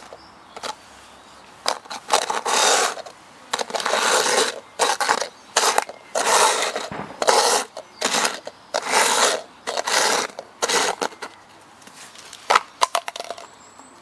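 Plastic cups being slid quickly back and forth across a concrete path, a string of short scraping sounds one after another. A few sharp light knocks follow near the end.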